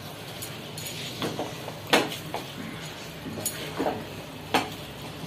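Wooden spatula stirring soaked rice in a metal pressure cooker pot: a steady rustle and scrape of grains against the pot, with a few sharp knocks of the spatula against its side.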